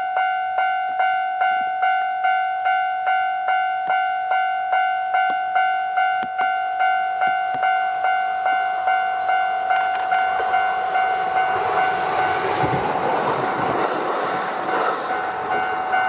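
A Japanese level crossing's electronic warning bell dings steadily, about twice a second. From about ten seconds in, a Kintetsu train passes: its running noise and wheels on the rails swell up and partly drown out the bell.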